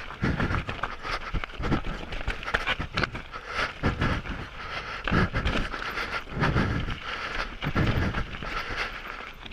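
A mountain biker's heavy breathing right on the microphone, a low puff on each breath about once a second. Under it run wind hiss and scattered clicks and rattles from the mountain bike on rough trail.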